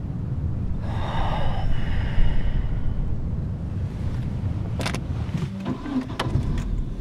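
Steady low rumble of a car heard from inside the cabin, with a breathy hiss about a second in and a few sharp clicks near the end.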